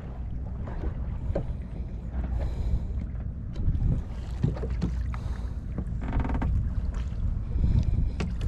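Wind buffeting the microphone over a low, steady rumble of water around a small fishing boat at sea, with scattered knocks. About six seconds in there is a brief, rapid clicking buzz.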